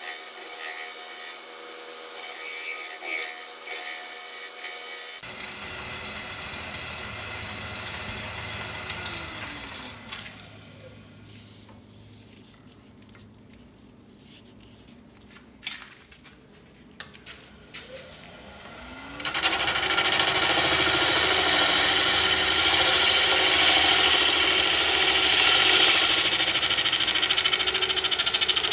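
Wood lathe turning a brown mallee burl blank cast in epoxy resin, with a gouge cutting it. About a third of the way in the lathe winds down and stops. It is quiet for several seconds, then the lathe spins back up and the gouge cuts the spinning face loudly and steadily to the end.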